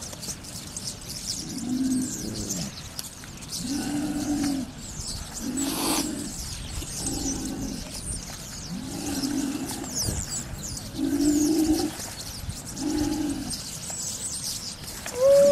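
A series of low hooting calls, one about every second and a half, each short and arched in pitch, with faint high chirps above them. A louder rising-then-falling call comes near the end.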